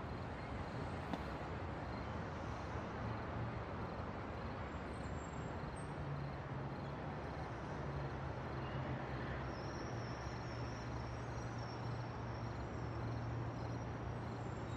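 Steady outdoor background noise: an even hiss with a low hum that grows stronger about halfway through, and faint high insect chirping in the later part.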